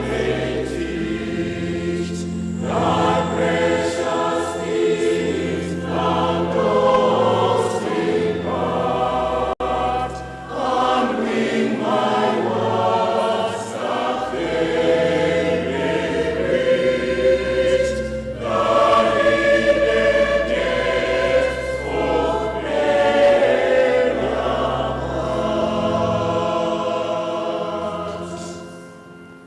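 A choir singing a hymn in sustained chords, fading out near the end.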